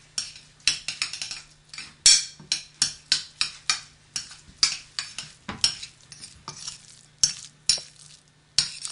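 Hands mixing cooked rice pilaf with sour cream and Parmesan in a bowl: a run of short, irregular strokes of wet, grainy stirring, roughly two a second.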